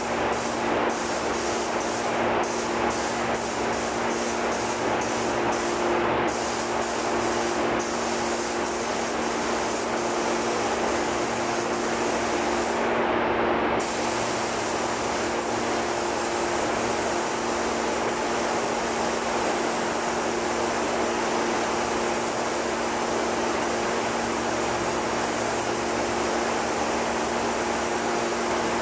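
Air-fed paint spray gun hissing steadily as paint is sprayed onto an aircraft wing, with a steady hum underneath.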